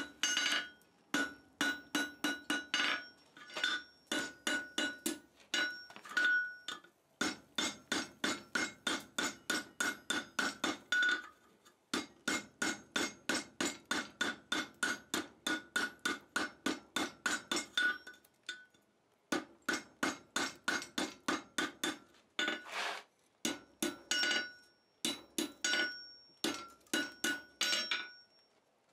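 Blacksmith's hammer striking a red-hot 3/8-inch round-bar chain link on a steel anvil, with the anvil ringing at each blow. The blows come in quick runs of up to about four a second, broken by short pauses. This is forge-welding the link's overlapped scarves and then dressing the link on the anvil horn.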